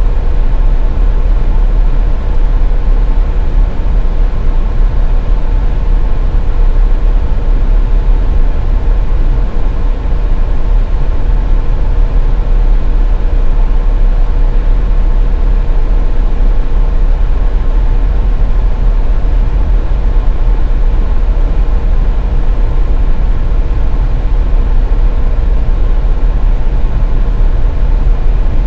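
Steady low rumble of a car driving on a highway, with a faint steady hum running through it.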